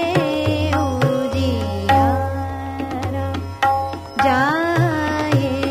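Hindustani classical music in Raag Hansdhwani: a melodic line of held and gliding notes over tabla, with the deep resonant tone of the bass drum sustained through the first half.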